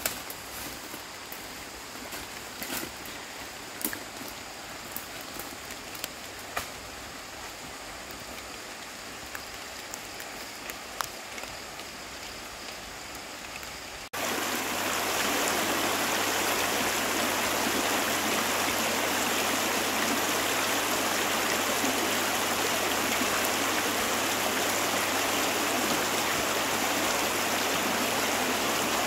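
Rushing stream water, a loud, even wash that starts abruptly about halfway through. Before it comes a quieter stretch with scattered sharp snaps and clicks.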